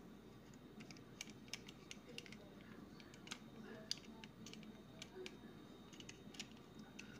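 Faint, irregular plastic clicks and ticks as the jointed parts of a small plastic transforming robot toy, one that folds into a mobile phone, are turned and snapped by hand.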